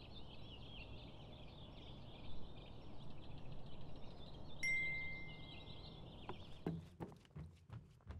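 Birds chirping and twittering outdoors. A single clear ringing tone sounds for about a second just past halfway, and near the end a run of short clicks or taps comes about three a second.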